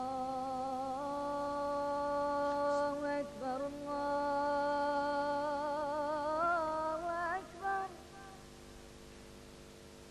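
Wordless vocal music: a single voice humming long held notes, some of them wavering, with a brief break about three seconds in. The phrase ends about two seconds before the close.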